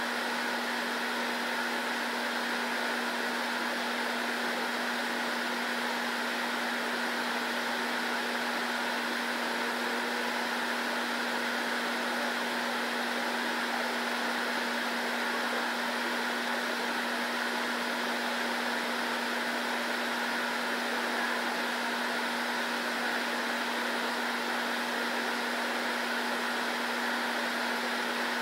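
Steady hiss with a constant low hum from a running indoor fan, unchanging throughout.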